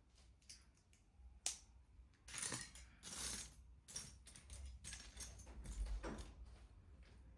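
LEGO pieces handled at close range: a sharp plastic click about a second and a half in, then short bouts of clattering and rustling.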